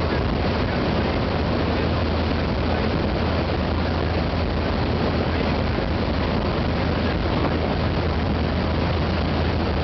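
Steady loud drone of a jump aircraft's engines and propellers mixed with rushing wind, with a deep low hum and no let-up.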